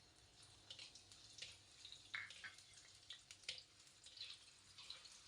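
Faint, irregular crackling and popping of sliced shallots frying in hot oil.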